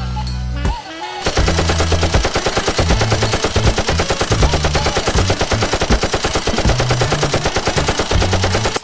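Rapid automatic gunfire, a long unbroken burst of evenly spaced shots starting about a second in and cutting off suddenly at the end, over background music with a bass line.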